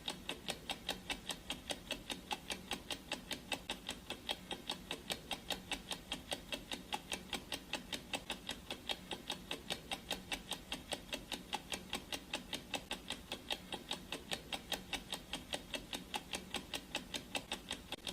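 Clock ticking sound effect: quick, even ticks at about four a second.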